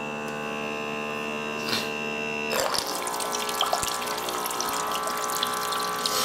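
Auto-refill pump of a LetPot Max hydroponic system running, really loud, with a steady hum and a high whine. About two and a half seconds in the whine drops out and water jetting from the refill tube starts splashing into the open reservoir bowl.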